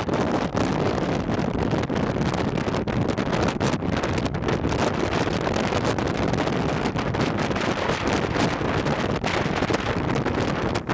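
Strong wind buffeting the microphone: a loud, continuous rumble of noise that rises and falls with the gusts.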